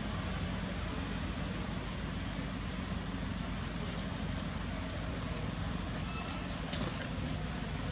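Steady low rumbling background noise, with one brief sharp sound about seven seconds in.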